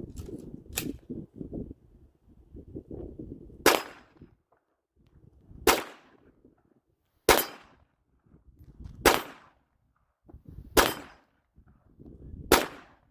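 Kel-Tec P50 pistol firing 5.7x28 mm rounds: six sharp single shots, one every one and a half to two seconds. A lighter click comes about a second in.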